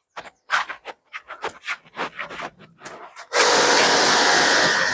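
Irregular scuffs and clicks. About three seconds in, an electric pressure washer starts abruptly: a steady hiss of its water jet hitting a car bonnet over a steady motor whine, the loudest sound here.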